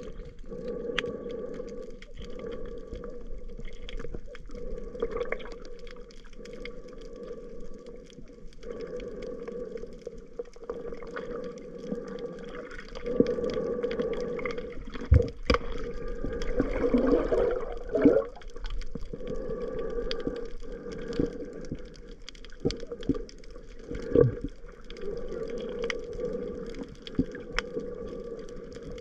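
Muffled underwater sound heard through a waterproof camera housing: a steady low hum with water movement and scattered sharp clicks. It grows louder and busier for a few seconds in the middle, with a few strong knocks.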